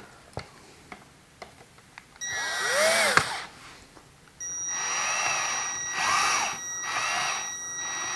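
A cordless power driver whines in two runs, a short one about two seconds in and a longer one from about halfway. The longer run surges three times as it drives a small machine screw into a nut held with a wrench. A few light metal clicks come before the first run.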